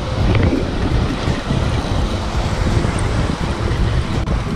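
Wind buffeting the microphone in a steady low rumble, over the wash of ocean surf.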